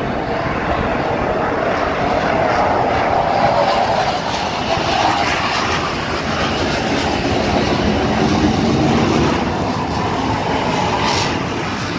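Jet engine noise from a low-flying F/A-18 Hornet fighter jet passing over, a loud, steady rushing roar whose droning pitch wavers slightly.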